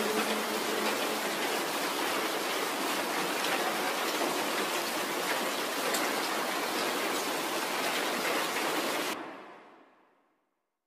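Steady heavy rainfall, an even hiss, fading out about nine seconds in and ending in silence.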